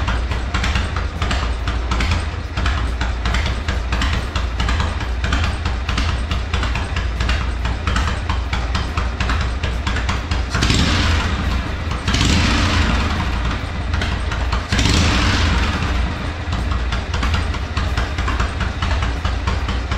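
1979 Harley-Davidson Shovelhead 1200 air-cooled V-twin idling steadily on its newly fitted Dyna-S electronic ignition, which replaces the old points. It is revved three times in quick succession about halfway through, then settles back to idle.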